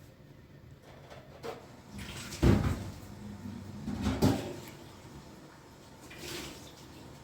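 A few knocks and bumps of things being handled or set down, the loudest about two and a half seconds in and another about four seconds in.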